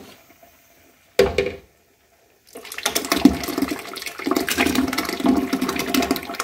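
Blended red chile sauce being poured into a large pot of pozole, a thick gurgling pour that starts about two and a half seconds in and keeps going. A short knock sounds about a second in.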